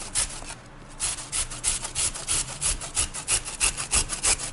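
Carrot being grated by hand on a metal-bladed Joseph Joseph box grater: quick rasping strokes, about four to five a second, with a short pause about half a second in.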